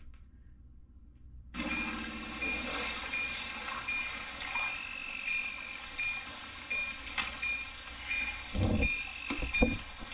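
Movie soundtrack played through Martin Logan electrostatic speakers. After a near-silent start, a steady high electronic beep sets in, repeating about twice a second like a tracking device homing on a signal. Two low thuds come near the end.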